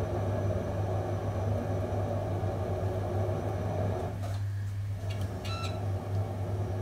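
Electric potter's wheel running with a steady low hum, under the rubbing swish of wet clay being pressed and spread by hand and sponge as it spins. The swish breaks off briefly about four seconds in.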